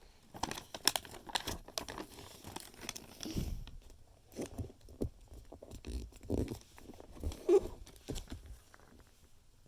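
Paper being folded and creased by hand for an origami model: irregular crinkling and crackling as the sheet is bent along its creases and pressed flat, with a few duller handling thumps.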